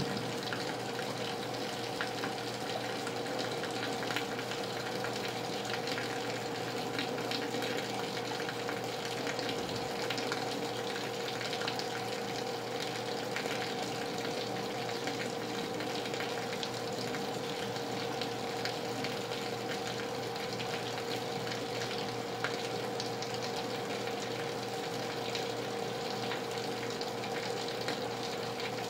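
Heavy rain falling steadily, a dense hiss of water with many small drop ticks, under a steady hum.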